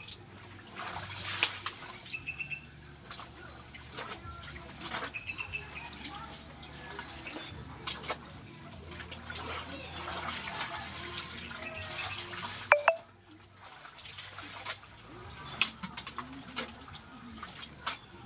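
Laundry washed by hand in a basin: wet clothes splashing, sloshing and slapping in soapy water as they are lifted out and plunged back. A short rising squeak comes about two-thirds of the way in.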